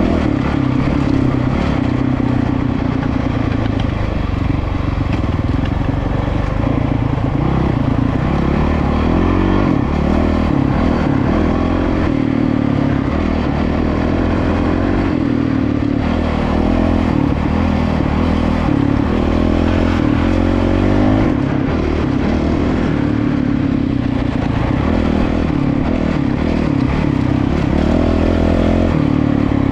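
Single-cylinder dual-sport motorcycle engine heard from on board while riding a gravel dirt road, its revs rising and falling as the rider works the throttle, with clatter from rocks under the tyres.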